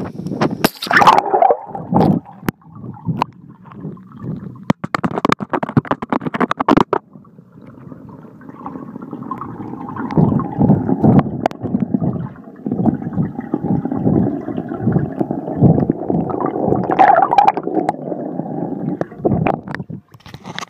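Water sounds picked up by a phone's microphone through its sealed waterproof case as it is dunked in a pool: first a run of knocks and clatters, then from about eight seconds in a muffled, steady underwater gurgling and rushing, which stops shortly before the end.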